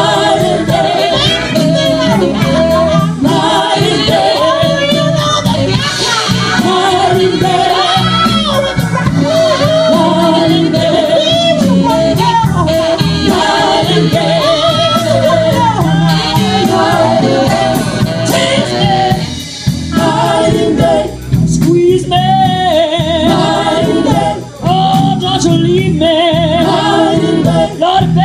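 Live soul band playing: a woman sings lead with vibrato over backing singers, bass guitar and drums with steady cymbal ticks.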